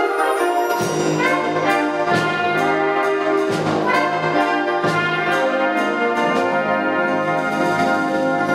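A concert wind band playing a full, sustained passage with the brass to the fore. Low notes come in about a second in, and sharp accents mark the music every second or so.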